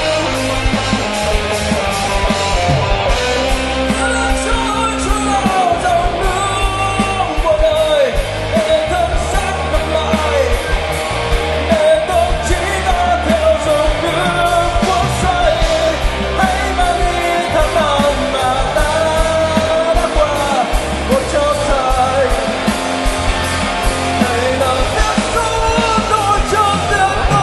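Rock band playing live: a lead vocalist singing over electric guitars, bass and drums.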